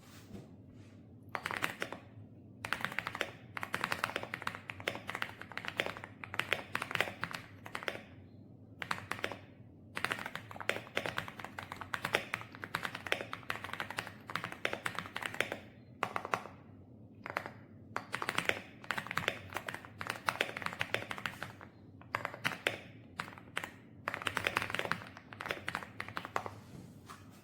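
Typing on an AULA F108 PRO full-size mechanical keyboard: runs of rapid key clicks broken by short pauses.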